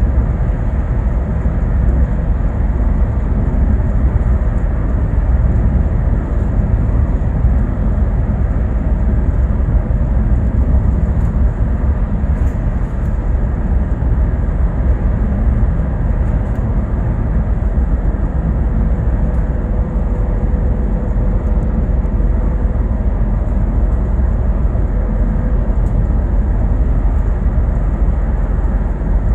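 Bus riding along, heard from inside: a steady low rumble of engine and road noise with no sudden events.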